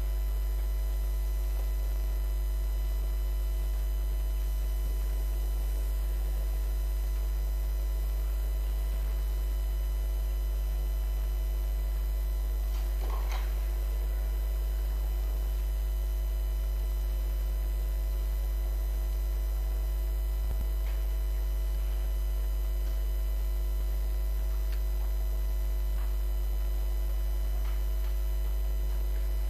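Steady electrical mains hum with a stack of overtones. A faint, brief sound rises over it about halfway through.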